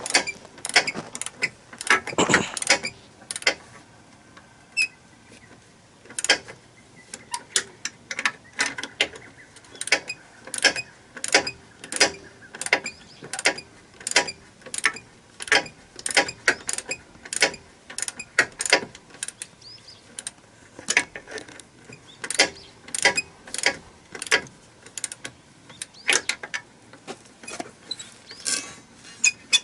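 Ratchet wrench clicking repeatedly while tightening bolts on the joint of a snowcat's rubber crawler track, about one or two sharp clicks a second, some in quick clusters.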